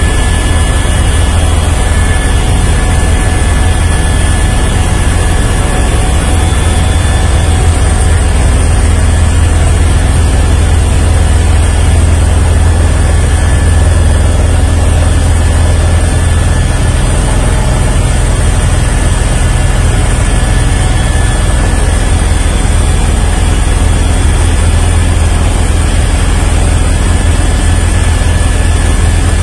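Helicopter cabin noise in flight: a steady, loud, low drone of the rotor and engine, with a faint steady higher whine on top, heard from inside the cockpit.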